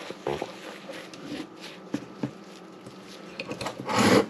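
Plastic disposable glove crinkling and dry seasoned flour rustling as a gloved hand works the mixture on a ceramic plate, with scattered light clicks. A louder crinkling rustle comes about four seconds in.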